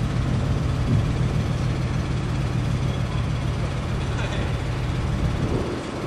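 Large vehicle engine idling with a steady low hum.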